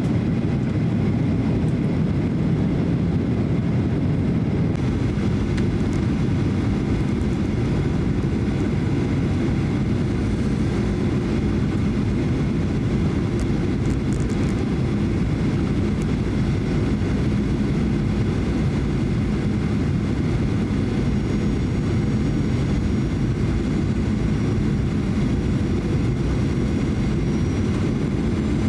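Cabin noise of a Boeing 737-800 on final approach, heard from a window seat: a steady low rumble of its CFM56 turbofans and the airflow past the fuselage. Faint high-pitched tones join in during the last several seconds as the plane comes down near the runway.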